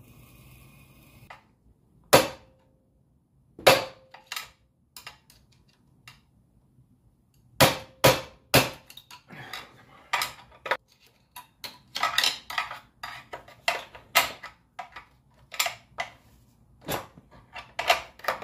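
Sharp metal clicks and clinks of a tool working the governor gear and shaft inside the open aluminium crankcase of a Predator 212 engine as the governor is pried out. There are a few spaced strikes at first, some ringing briefly, then rapid repeated ones from about eight seconds in.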